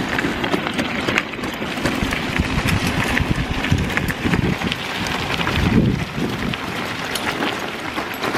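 Bicycle tyres rolling over a loose gravel road: a steady crunching crackle of small stones, with wind rumbling on the microphone.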